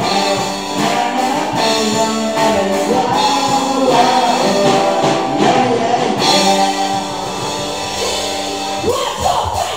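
Live punk-rock band performance: a man sings lead vocals over his electric guitar.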